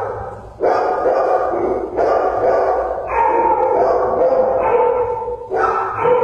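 Shelter dogs in their kennels barking almost without pause, the calls running together in long stretches with only brief breaks.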